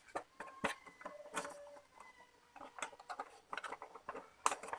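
Plastic clicks and knocks as the scanner unit of an Epson L360 printer is handled and fitted back onto the printer body: scattered light clicks, with louder knocks near the end.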